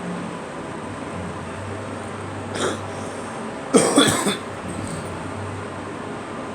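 A girl coughing: one short cough about two and a half seconds in, then a louder run of two or three quick coughs about a second later.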